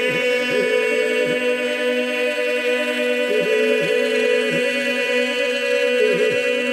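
Unaccompanied Albanian folk polyphony: a group of voices holds a steady drone beneath a lead voice that sustains one long note, dipping briefly in quick ornaments several times.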